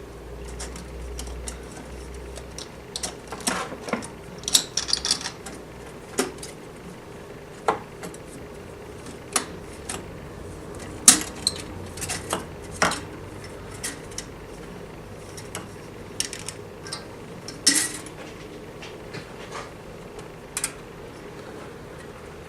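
Irregular metallic clinks, taps and scrapes of hand work on a stripped motorcycle engine as the metal cylinder base gasket is eased off the crankcase. The clicks come singly and in small clusters, a few seconds apart.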